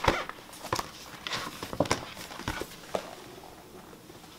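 Paper sticker sheets being handled and put away by hand: a loose series of light taps and clicks with soft paper rustling between them.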